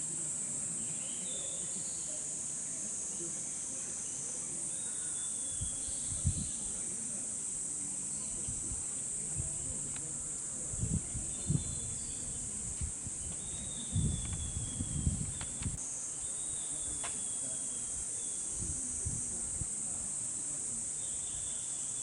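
A chorus of cicadas in a steady high-pitched drone. A few short, faint falling notes sound over it, and there are several low dull bumps in the middle.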